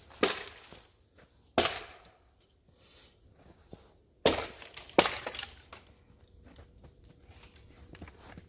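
An axe chopping dry, dead pine: four sharp, unevenly spaced strikes, each followed by a brief crackle of splintering wood.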